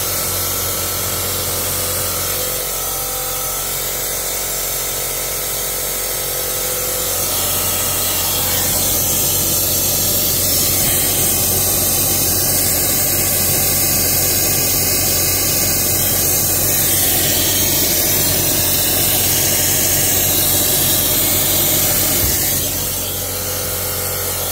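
Compressed-air engine cleaning gun spraying soapy water into a car's air-conditioning system, a steady hiss that grows louder about seven seconds in and falls back near the end.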